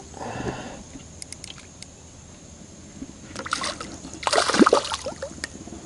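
Water splashing in two short bursts in the second half as a hooked smallmouth bass thrashes at the surface beside a kayak while it is being netted.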